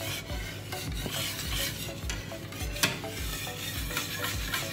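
A wire balloon whisk beating thick, wet cheesecake batter by hand in a metal bowl, in a steady rhythm of strokes a little over two a second. The wires now and then click against the bowl, once most sharply near the middle.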